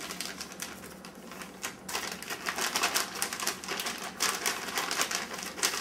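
Plastic baggie holding flour, salt and pepper crinkling and rustling as it is shaken and kneaded by hand to mix a breading, a rapid run of crackles that eases briefly about a second in.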